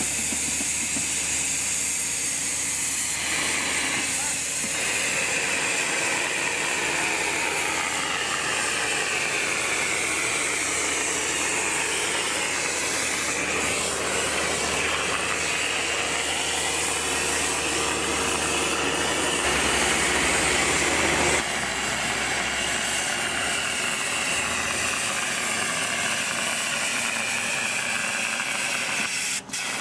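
Road-marking machine laying a hot spray-plastic line: the spray guns give a steady loud hiss over the machine's running engine, swelling briefly about twenty seconds in.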